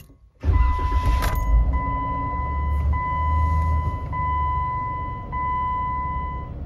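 Jeep Wrangler V6 engine starting about half a second in and settling to a steady idle, on its first start after the battery is reconnected. Over the engine, the dashboard seatbelt-reminder chime sounds about every second, five times.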